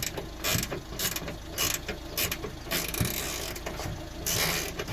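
Ratchet spanner clicking in short strokes, about two a second, with a couple of longer runs of clicking, as a gas boot strut's mounting bolt is undone.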